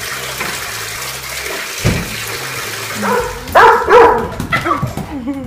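Water pouring from a bath mixer tap into the tub, with a thump about two seconds in. Then a dog barks several times in quick succession over the last two seconds, loud.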